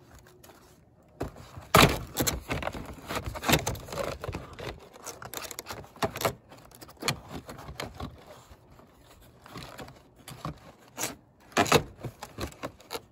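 Vinyl siding panel being pushed and snapped back into place by hand: a string of plastic clicks, knocks and scrapes, the loudest about two seconds in and again near the end.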